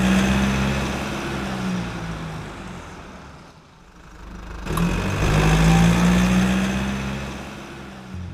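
Car engine revving in two swells: loud at first and fading away over about three seconds, then rising again about five seconds in and slowly fading out.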